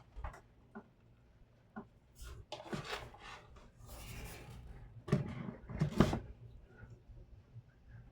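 Laptop parts being handled on a workbench: a few light clicks, then a stretch of rubbing and scraping, then two sharp knocks a little under a second apart, the second louder.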